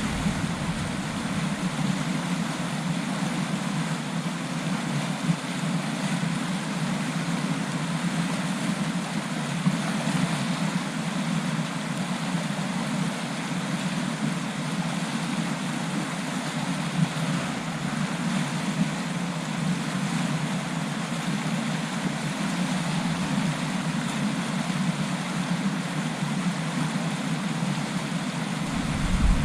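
Rushing stream water, a steady, even rush.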